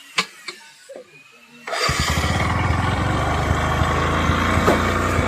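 A few clicks, then a vehicle engine starts about a second and a half in and keeps running steadily.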